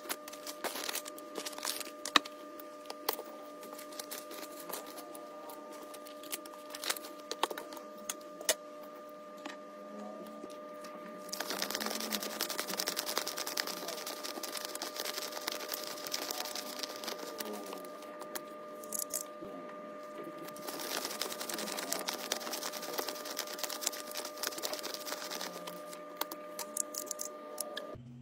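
Philippine peso banknotes being counted by hand. For the first ten seconds or so there are scattered crisp snaps and clicks as single notes are laid down. From about eleven seconds in a denser, continuous paper rustle runs as a stack of notes is fanned and riffled between the fingers.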